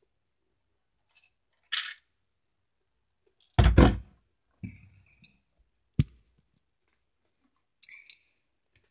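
LEGO bricks being handled: scattered plastic clicks, knocks and rattles, the loudest cluster about three and a half seconds in and a sharp knock about six seconds in.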